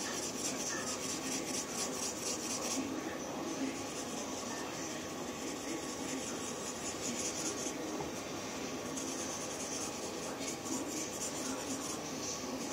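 Pen scribbling rapidly back and forth on paper, shading in a drawing, in stretches of quick strokes broken by two short pauses.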